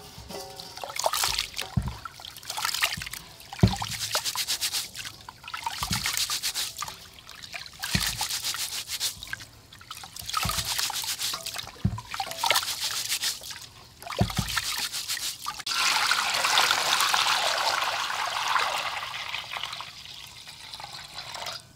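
Raw rice being washed by hand in a metal pot of water: grains scooped and rubbed, with a slosh and trickle about every two seconds. From about sixteen seconds in, a steady stream of water pours into the pot for several seconds.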